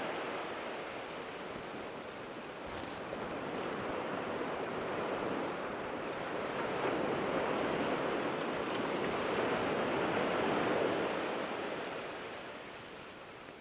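North Sea surf breaking on the beach: a steady rush of waves that swells over several seconds and then fades near the end.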